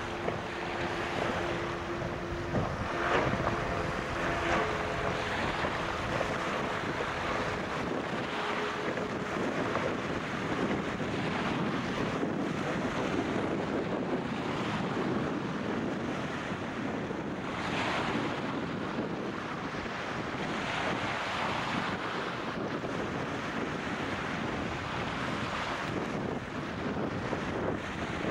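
Wind buffeting the microphone over rough water, steady throughout. A speedboat's outboard motor is heard running at speed in the first few seconds as a steady tone, then is lost under the wind.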